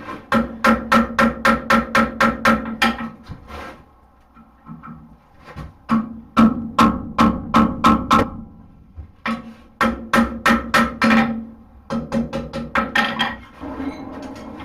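Hammer blows on hot steel over an anvil, in quick runs of about four or five ringing strikes a second, with short pauses between the runs.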